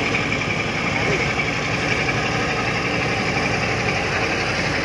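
Diesel engine of a tractor-trailer hauling a shipping container, running steadily at low revs as the truck crawls past.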